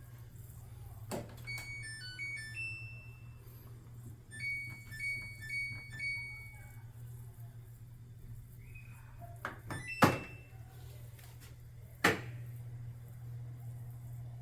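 Samsung Hauzen 12 kg drum washing machine playing its end-of-cycle chime: two short electronic beep melodies of stepped tones, over a steady low hum. Later come two sharp clunks, the first the loudest sound.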